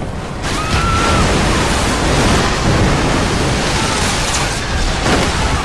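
Film soundtrack of a tsunami wave surging through a street: a loud, dense rushing roar of churning water that swells sharply about half a second in and stays heavy.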